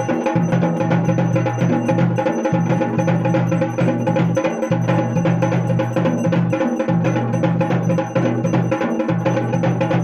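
Music with fast, steady drumming over a sustained low tone that breaks off briefly about every two seconds.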